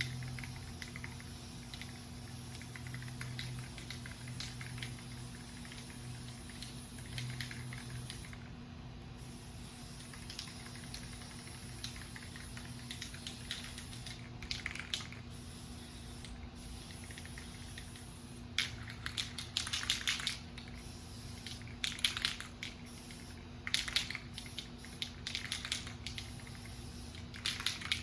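Aerosol spray paint can spraying in a series of short hissing bursts, each about a second long. The bursts come more often in the second half.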